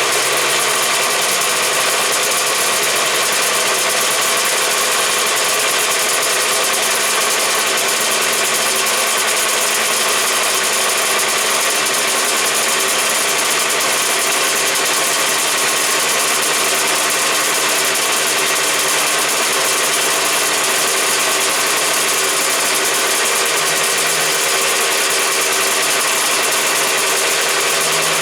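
Honda NSR500 V4 two-stroke racing engine in big-bang firing-order spec, running steadily at idle.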